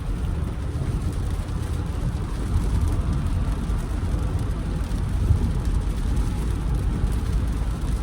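Jeep Grand Cherokee driving in heavy rain: a steady low engine and road drone with the hiss of rain.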